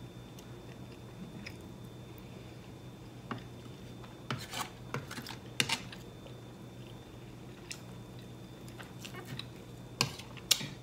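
Quiet eating: chewing, with a few sharp clicks of a fork and spoon against a cut-glass dish, clustered about four to six seconds in and again near the end, over a faint steady hum.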